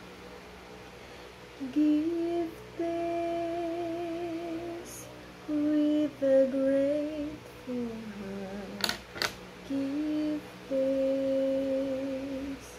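A woman's voice, unaccompanied, carrying a slow melody in long held notes with short breaks and no clear words. Two sharp clicks come about nine seconds in.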